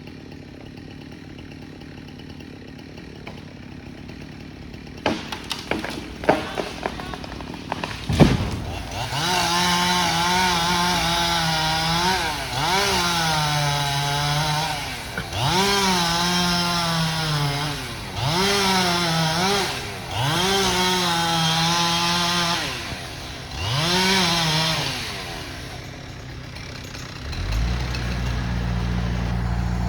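Chainsaw cutting through ash wood: after a few knocks and one loud thump about eight seconds in, the saw revs and cuts in about six bursts of two to three seconds, its pitch sagging as it bites into the wood. Near the end a steadier, lower engine drone takes over.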